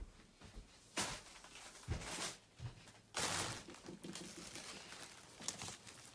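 Rustling and shuffling of heavy embroidered fabric as it is handled, in a few short noisy bursts, the longest about three seconds in.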